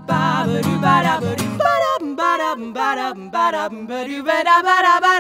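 Acoustic guitar strumming under a sung line for about the first second and a half, then the guitar stops and the voice carries on alone, sliding between held notes.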